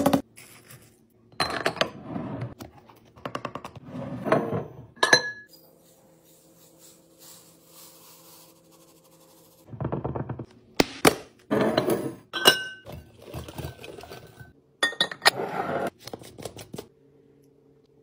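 Small laundry scent beads pouring from a bottle and rattling into a glass jar in several grainy rushes, then, after a quiet spell, a run of sharp clinks and knocks of glass as jars and their lids are handled.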